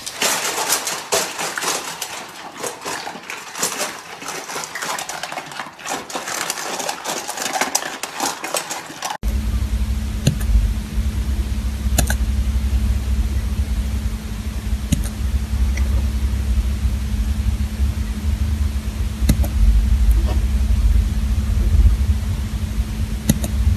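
Busy clattering and scrabbling of several dogs rushing to their food bowls across a hard floor. About nine seconds in it cuts to a steady low hum with a few light clicks.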